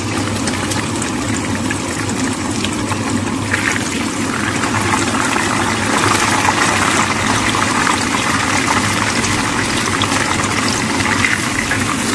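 Breaded chicken cutlet shallow-frying in hot olive oil in a frying pan: steady sizzling with fine crackling as the coating browns, a little louder from about six seconds in.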